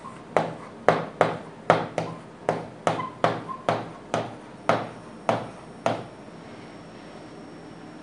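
Pen tip tapping and knocking against the hard surface of an interactive whiteboard screen while handwriting. There are about a dozen sharp taps at an uneven pace, which stop about six seconds in.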